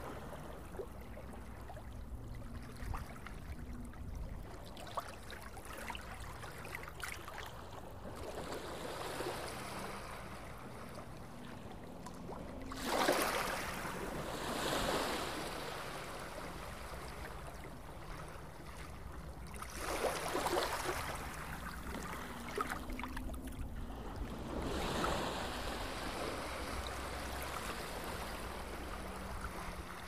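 Sea surf breaking and washing up a sandy beach, swelling into louder surges every five to seven seconds, the loudest about 13 seconds in, over a steady low rumble.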